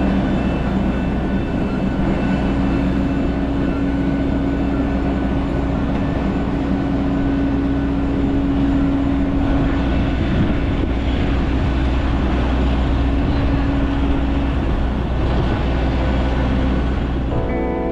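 Steady airport apron noise around a parked jet airliner: a constant low hum with a steady whine over a rushing background, from the aircraft and its ground power equipment.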